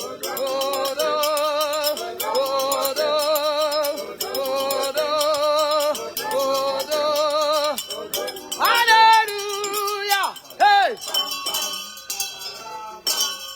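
Music: wordless sung phrases with a wavering vibrato, each about a second long, over a steady shaker rattle. About two-thirds of the way through, the voice breaks into two or three loud falling swoops before it thins out.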